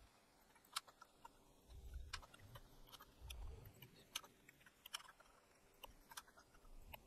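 Near silence broken by faint, irregular clicks of computer keyboard keys and mouse buttons, about ten of them spread over several seconds.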